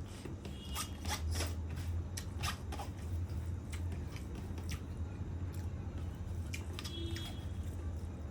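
Close-up eating of chicken curry with rice: wet chewing and mouth smacks in a string of short sharp clicks, over a steady low hum.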